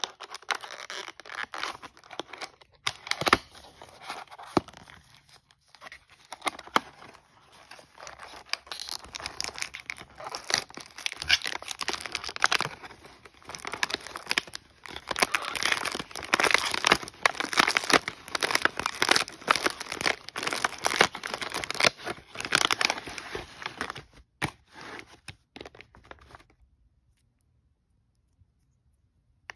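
Plastic wrap and cardboard packaging being torn open and crinkled by hand, with a dense, irregular crackle. It stops abruptly a few seconds before the end.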